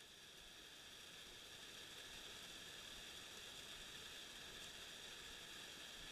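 Faint, steady hiss heard through a GoPro's sealed waterproof housing, which muffles the creek and rain almost to nothing; it fades in over the first two seconds.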